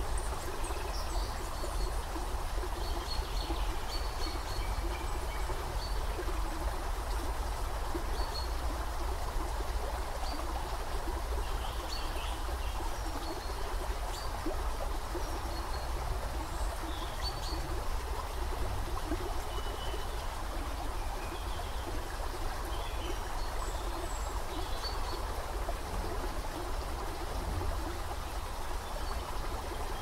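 Creek water running steadily over rocks, with scattered short, high bird chirps.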